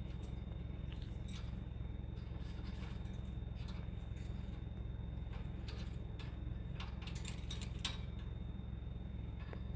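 Faint scattered clicks and rustles from a pet parrot moving, over a steady low hum and a faint high whine; the clicks bunch together about seven to eight seconds in.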